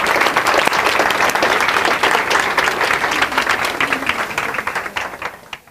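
A large audience applauding, the clapping thinning to scattered single claps and dying away near the end.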